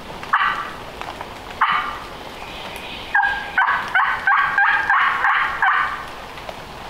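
Wild turkey hen yelps made on a mouth call: two single raspy notes, then about three seconds in a quick run of about eight yelps, each breaking from a high note to a lower one, about three a second.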